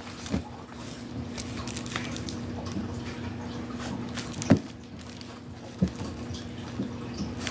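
A small cardboard firework cake box being handled and turned over in the hand, with a few sharp knocks and taps, the loudest about halfway through.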